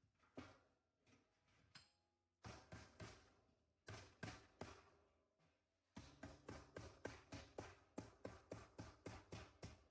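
Light hammer blows on sheet metal, closing over the seam of a hand-formed HVAC duct fitting: scattered strikes at first, then a steady run of about four blows a second from about six seconds in.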